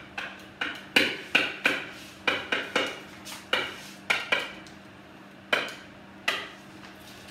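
About fifteen sharp, irregular taps and clinks against an interactive whiteboard as its on-screen buttons and tool strip are pressed, each with a brief ringing tail. They thin out and stop after about six and a half seconds.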